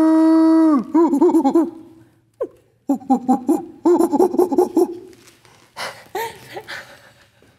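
A woman making wordless attention-getting noises at puppies: a long held note that breaks off just under a second in, then bursts of rapid wavering warbles, about five wobbles a second, and a few shorter squeaky calls near the end.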